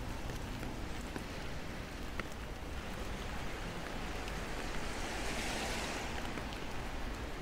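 Steady rain falling on pavement and road, with the tyre hiss of a car on the wet street swelling about five seconds in and then fading.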